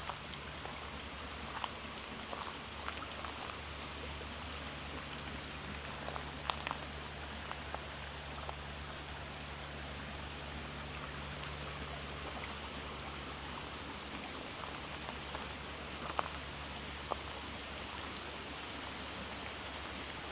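Outdoor garden ambience: a steady even hiss with a low hum beneath it and scattered small ticks and clicks, a few a second early on and sparser later.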